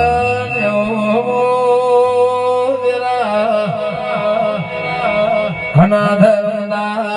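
Indian devotional music intro: sustained melodic instrument lines with gliding ornaments over a steady drone, with a drum whose pitch swoops up and down in the second half.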